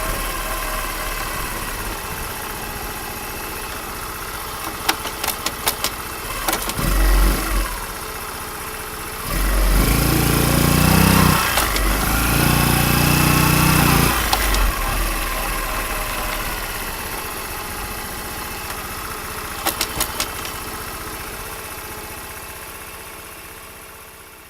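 Honda Super Cub engine, bored up to 105 cc and fitted with a manual cam chain tensioner, running at idle. It is revved up twice in the middle and there are a few sharp clicks, with no steady cam-chain ticking. The sound fades out at the end.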